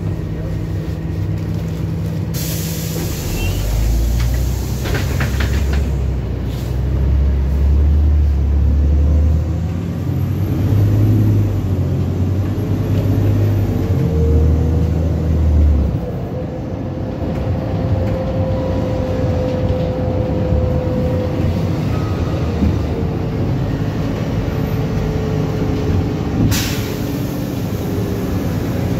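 Cabin sound of a NefAZ 5299 city bus pulling away from a stop. A short hiss of compressed air comes about two seconds in. The engine's low drone then rises and falls as the bus gathers speed, runs on more steadily, and another air hiss comes near the end.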